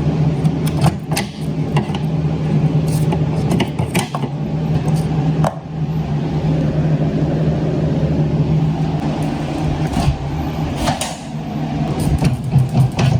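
A machine running with a steady low hum, with irregular clicks and knocks over it.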